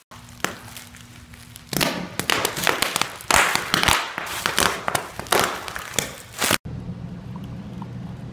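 Plastic bubble wrap being handled, crinkling and then popping in a rapid, irregular run of sharp snaps that stop abruptly near the end.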